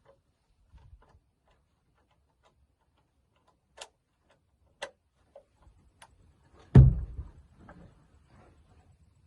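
A few faint scattered clicks, then one loud heavy thump about seven seconds in that dies away within a second.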